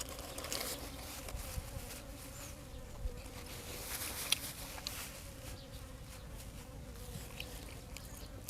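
A faint, steady, slightly wavering buzzing hum, with a few soft clicks from eating.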